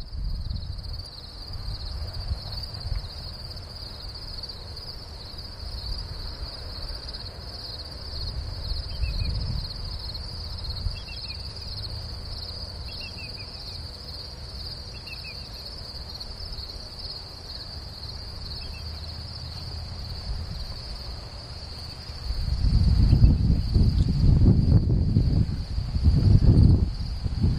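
Crickets trilling in a steady, high-pitched chorus, with a few short chirps standing out around the middle. A loud low rumble joins from about 22 seconds in.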